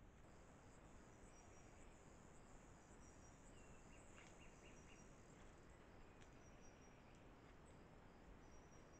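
Near silence: faint, high-pitched insect chirping repeating over a low background hiss.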